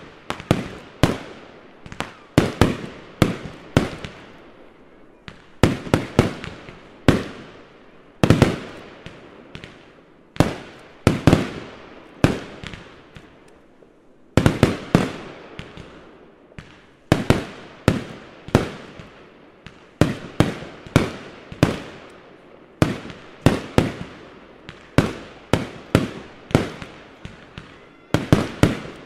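Fireworks going off in quick succession: sharp bangs from bursting aerial effects, often several a second, each trailing off in an echo, with a short thinner spell about halfway through.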